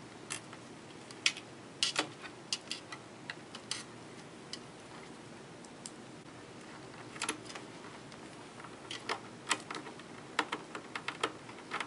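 Small screwdriver and screws clicking and tapping against a metal stand bracket as screws are set and driven in by hand. The clicks are irregular and come in two spells, with a lull in the middle.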